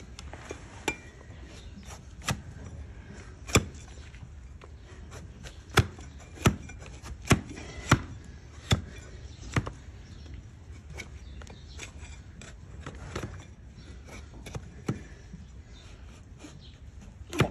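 Donkey hoof horn being pared with a long-handled flat hoof blade on a wooden stool. It gives about a dozen sharp cracks at irregular intervals as the blade shears through the horn onto the wood, most closely spaced in the middle.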